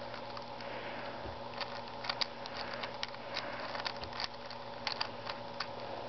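Light, irregular plastic clicks of a 5x5 Rubik's Cube's layers being turned and misaligned by hand.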